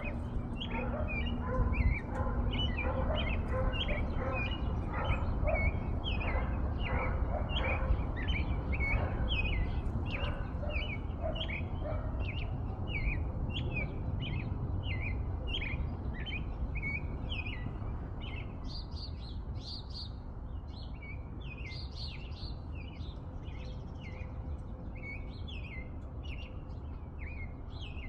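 A songbird chirping steadily, a quick run of short, sharp, high notes several times a second; higher notes join in about two-thirds of the way through. A low rumble runs underneath.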